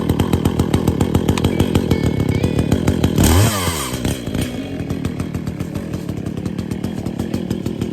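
Echo CS-400 two-stroke chainsaw running at idle with a fast, even putter. About three seconds in it is revved up briefly and drops back to idle.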